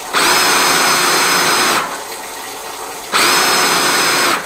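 Electric motor of a power drain-cleaning machine run in two short bursts of a second or so each, starting and stopping abruptly, with a steady whine while it runs.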